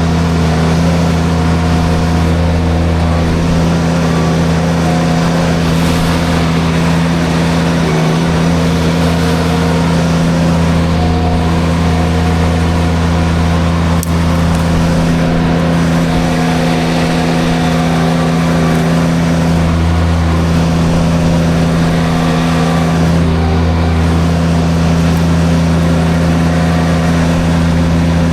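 Derette V1000 mini skid steer with forestry mulcher running steadily at working speed: a constant low engine drone with an even rush of mechanical noise over it, unchanging in level.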